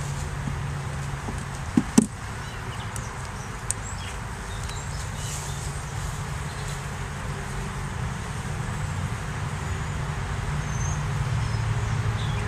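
Two sharp knocks close together about two seconds in, wooden hive frames bumping against the hive box as they are moved, over a steady low hum.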